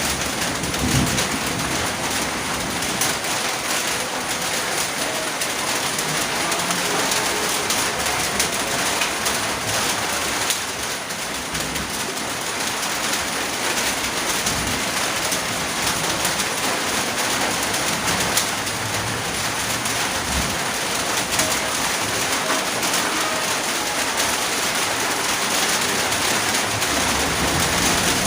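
Steady rain falling around a house, a dense even patter of raindrops with no breaks.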